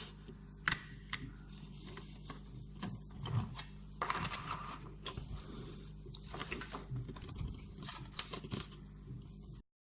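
Small plastic toy pieces being handled and fitted together: scattered light clicks and taps of plastic on plastic, over a faint steady hum. The sound cuts off just before the end.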